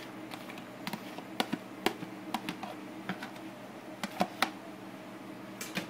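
Light, irregular plastic clicks and taps as a plastic container is tipped and knocked against a plastic tub while chopped red onion is shaken out, over a faint steady hum.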